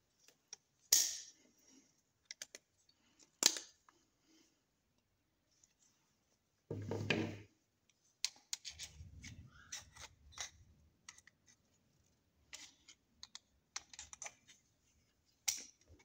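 Metal clicks and light clatter of a 30-bore pistol's parts being handled and worked with pliers while its faulty trigger spring is adjusted. Two sharp clicks come about a second and three and a half seconds in, a duller knock around seven seconds, then a run of small ticks and rattles with some low rubbing.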